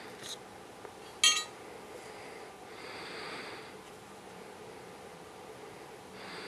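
A single short, ringing metal clink about a second in, as metal parts are handled, with faint rustling handling noise after it.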